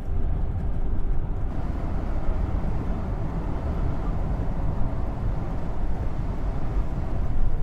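Steady in-cabin drone of a 1970 Buick Estate Wagon's 455 V8 cruising at highway speed, a low rumble with tyre hiss off the wet road that grows about a second and a half in.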